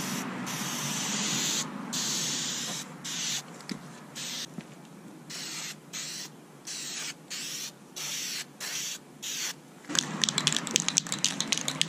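Aerosol can of Dupli-Color vinyl and fabric dye spraying: one long hiss, then a run of short bursts. Near the end the can is shaken, its mixing ball rattling fast.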